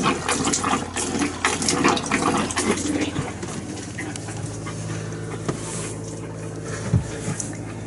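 Motorhome bathroom tap spitting and sputtering in rapid irregular bursts as water and trapped air are pushed through the hot-water line: air pockets being bled from the system. From about four seconds in it gives way to a steadier, quieter hum.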